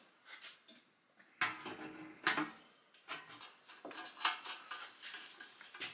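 Metal clanks and clinks from drill press parts being handled and fitted together, an irregular series of knocks with the sharpest about a second and a half, two seconds and four seconds in.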